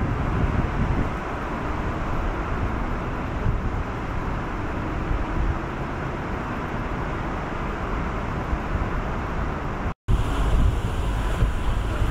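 Wind buffeting the microphone, a steady rushing noise with heavy low rumble. About ten seconds in it cuts off abruptly and gives way to wind noise on a moving boat.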